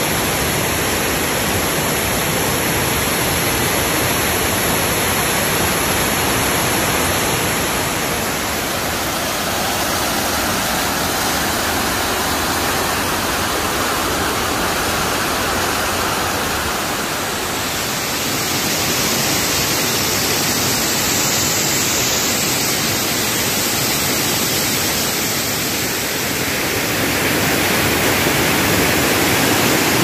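Waterfall pouring and cascading over rocks: a steady, loud rush of water that swells a little near the end.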